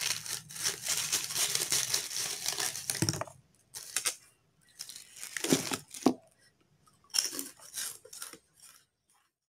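Crisp flour-battered fried tempe gembus (tempe gembus kemul) being torn apart by hand: a dense crackling for about three seconds, then a few shorter scattered crackles.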